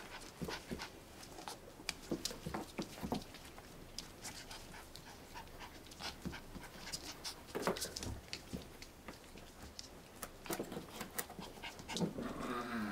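Havanese puppies panting and scuffling as they play-wrestle on the rim of a plastic ball pit, with many light irregular clicks from the plastic balls and the tub. A brief low puppy growl near the end.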